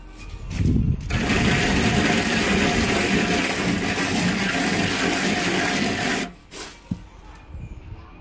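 Plastic float rubbed over fresh Ceresit 137 grain-textured decorative plaster: a loud, continuous rasping scrape that begins about a second in and cuts off about six seconds in. This is the final rubbing that forms the plaster's texture.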